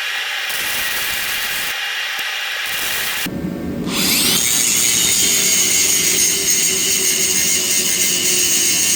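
Steady hissing shop noise for the first few seconds, then an angle grinder spins up with a quickly rising whine about four seconds in and runs on steadily, grinding metal on the rake frame being cleaned up for welding.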